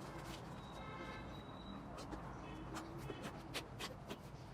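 Slime being pressed and poked by hand: faint, scattered sticky clicks and small pops over a low steady background.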